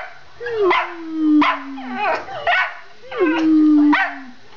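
Schipperkes howling and barking: two long, slowly falling howls, each about a second and a half, with short sharp yips and barks breaking in over and between them.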